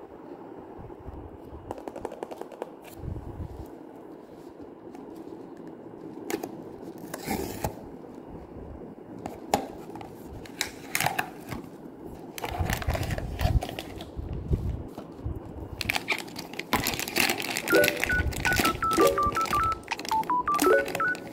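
Packaging being handled: crinkling, rustling and sharp clicks of a blind box and its wrapper being opened. About two-thirds of the way through, a simple tune of short beeping tones starts alongside.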